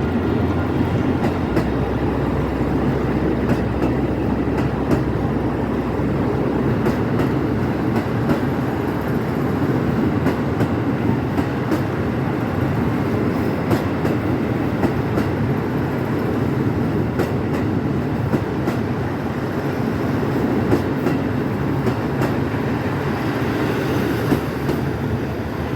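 KiHa 85 series diesel railcar train running, a steady rumble of engine and wheels on rail with occasional clicks of the wheels over rail joints.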